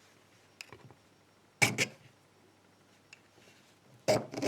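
A few short scraping strokes of a metal file across the steel body of a padlock, testing whether it is hardened: a pair of strokes close together about one and a half seconds in and another near the end, with faint clicks between.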